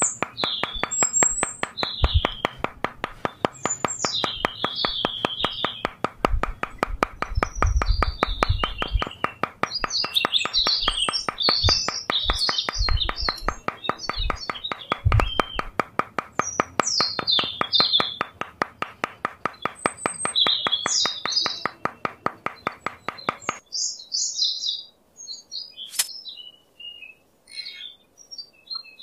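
Small birds chirping and twittering throughout. Under them a steady, rapidly pulsing buzz with a few low knocks, which cuts off suddenly about 23 seconds in.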